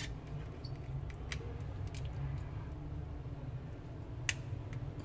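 Light scattered clicks and taps of small phone parts and a screwdriver being handled during phone reassembly, with one sharper click about four seconds in as a finger presses on the board. All of this sits over a low steady hum.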